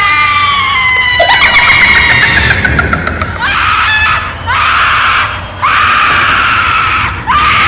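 A series of long, high-pitched screams, each sweeping up at the start, then held and sliding slightly down, about five in a row with short breaks between them.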